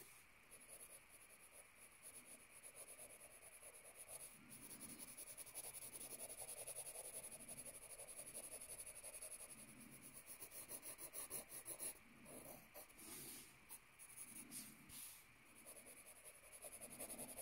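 Faint scratching of a graphite pencil on notebook paper: a run of short, quick shading strokes laying dark tone back in.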